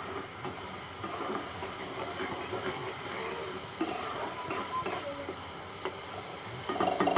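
A spatula stirring and scraping through a wet tomato-onion masala in a kadhai, the masala simmering with a little water just added, with a few faint knocks of the spatula against the pan.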